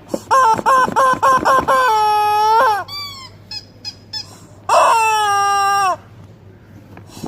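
Toy ducks squawking: a quick run of about six short, high squeaky honks, then a long held squawk that drops in pitch at its end, a few faint high chirps, and a second long squawk.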